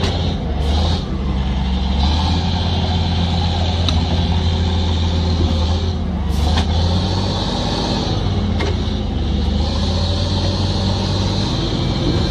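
Heavy truck or machine engine running steadily, a deep, even hum with a steady high hiss over it.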